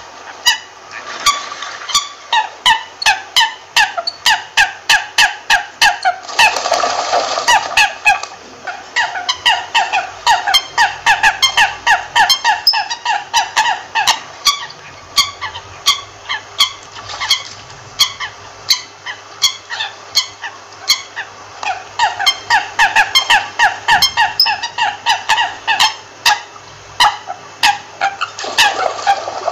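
American coots calling: a long, fast series of short, pitched notes, about three a second, going on almost without a break. A short rush of noise sounds around seven seconds in.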